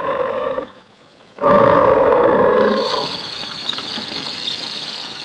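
Alligator roaring, twice: a short roar that stops just under a second in, then a louder one about a second and a half in that slowly fades into a lower, noisier tail.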